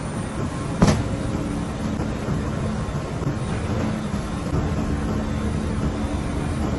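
Steady low machinery hum with a sharp knock about a second in.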